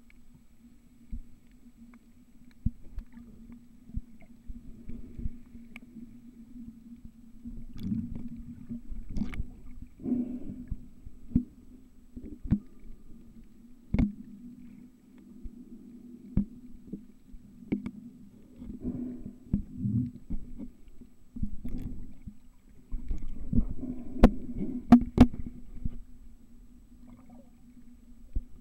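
Underwater sound picked up by a snorkeler's camera below the surface: muffled moving water over a steady low hum, broken by irregular sharp clicks and knocks, with the loudest pair of knocks a few seconds before the end.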